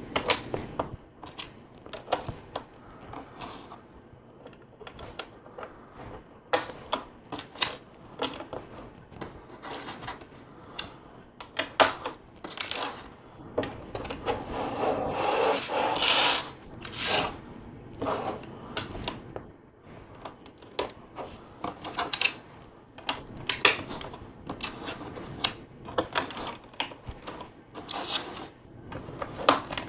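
Plastic LEGO tiles and plates being handled and pressed together: irregular sharp clicks and taps, with a denser stretch of rattling around the middle.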